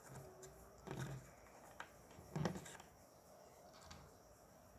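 Plastic Lego bricks being handled on a wooden tabletop: a few light clicks and knocks as pieces are picked up and set down, the loudest a little over two seconds in.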